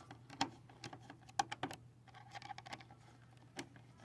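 Scattered light clicks and taps, a few of them sharper, from a screwdriver and the plastic side marker light housing being worked as its bottom screw is taken out.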